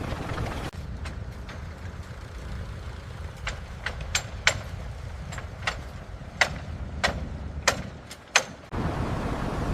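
Construction-site machinery: a steady low engine rumble with about a dozen sharp, irregular knocks. A denser, steadier rumble cuts in abruptly near the end.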